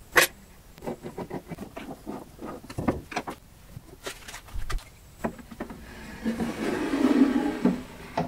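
Wood being handled on a workbench: a scatter of light taps and knocks, then about two seconds of louder rubbing, sliding noise near the end.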